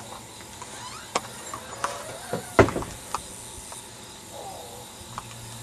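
Outdoor ambience: a steady high insect hiss with a few sharp clicks scattered through, the loudest a thump about two and a half seconds in.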